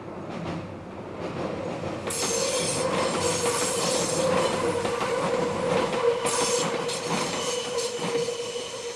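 Meitetsu electric train on a tight curve, its wheels squealing with one steady high tone over the rumble and clatter of the wheels on the rails. The squeal is the wheels grinding around the curve. It grows louder about two seconds in, and a harsh hiss joins it about two seconds in and again around six seconds.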